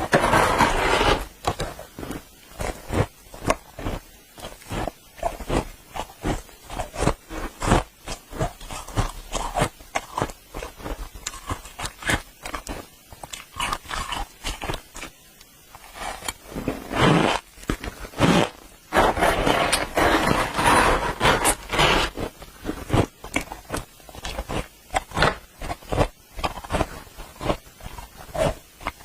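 Dry freezer frost being scraped with a spoon and eaten. Rapid, irregular squeaky crunches run throughout, with longer scraping stretches near the start and again past the middle.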